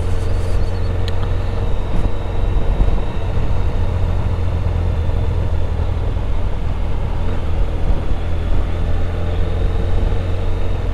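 Motorcycle on the move at a steady speed, its engine and road noise a continuous low rumble that holds even throughout.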